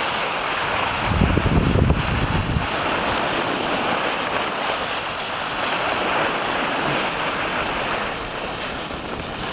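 Wind rushing over the microphone of a camera carried by a moving skier, over the steady hiss of skis sliding on packed snow. Low buffeting gusts come between about one and two and a half seconds in.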